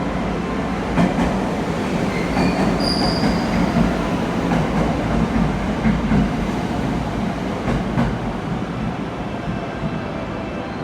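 A train rumbling along the platform with a loud, steady rolling noise. The wheels give a short high squeal about three seconds in, and there are a few sharp knocks from the wheels and rail joints.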